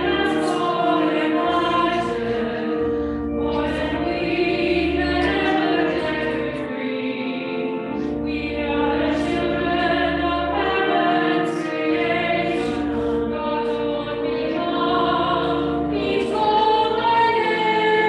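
A small choir of two singers singing a hymn in phrases, with organ accompaniment holding low sustained notes underneath.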